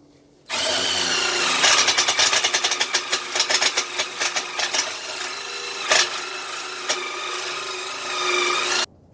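Ozito impact driver running under heavy load for about eight seconds, its motor whining and its impact mechanism hammering in rapid clicks through much of the run, then cutting off sharply. It fails to finish the job, which the user puts down to a lack of torque.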